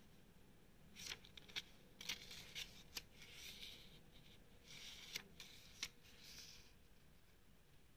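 Pages of a small paper instruction booklet being turned by hand: three spells of soft paper rustling with a few sharp flicks, about one, two and five seconds in.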